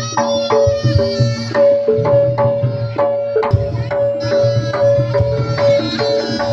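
Javanese jaranan dance music: hand drums beat a steady rhythm of about two strokes a second, under a long held note and a line of stepping melody notes.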